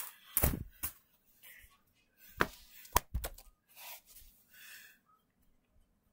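Handling noise: a string of soft knocks and thumps, several in the first second and more about two and a half to three seconds in, with faint rustling between, as plush toys and hands are moved about on a carpeted floor close to the camera.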